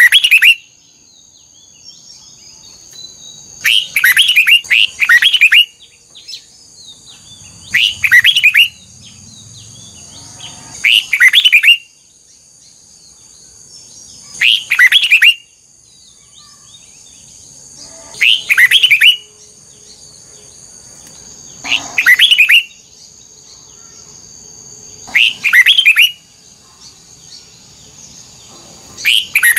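Red-whiskered bulbul singing short, loud song phrases about every three and a half seconds, some nine in all, with a steady high-pitched ringing underneath.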